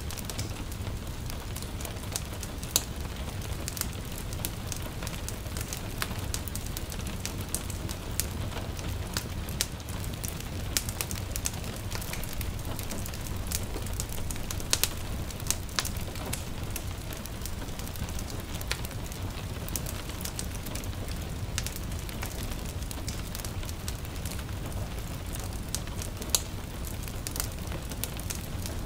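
Wood fire crackling, with irregular sharp pops over a steady low rumble, mixed with a soft hiss of light rain.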